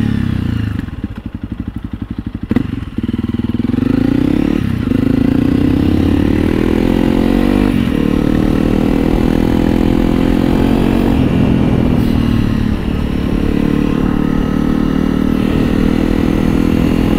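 Honda CRF300L's single-cylinder four-stroke engine through a Yoshimura RS-4 full exhaust, heard from the riding bike. The throttle closes about a second in and the engine drops to a low, pulsing putter. It then pulls away, rising in pitch through the gears with shifts about five, eight and thirteen seconds in, and settles to a steady cruise.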